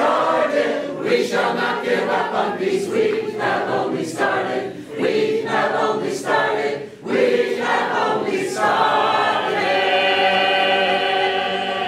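Choir of men's and women's voices singing together in short phrases, then holding one long chord over the last few seconds.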